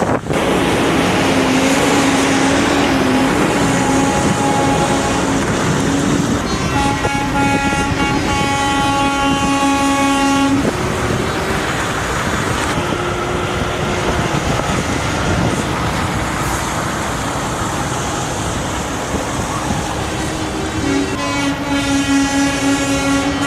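Truck air horns sounding in long held blasts over the noise of passing trucks. A low horn holds from about a second in, a second horn joins it around seven seconds, and both cut off together near eleven seconds. Horns sound again in the last couple of seconds.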